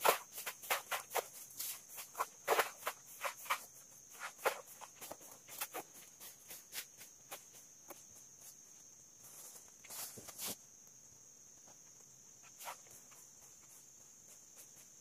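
Steady high insect chirring, like crickets, with an irregular run of sharp clicks and knocks over the first half that thins to a few scattered knocks later.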